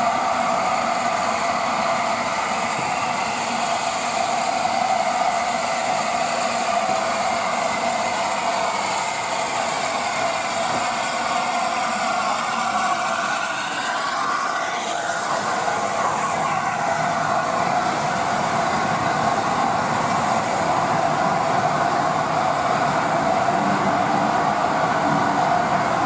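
LNER A4 Pacific steam locomotive 60007 Sir Nigel Gresley running slowly into a station with its train, with a steady rolling of wheels on rail. The pitch sweeps as the locomotive passes close by about halfway through, and the coaches then roll past.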